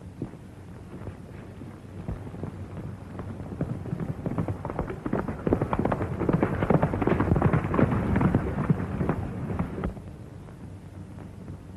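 Hoofbeats of a galloping horse: a fast clatter that grows louder over several seconds and cuts off abruptly near the end.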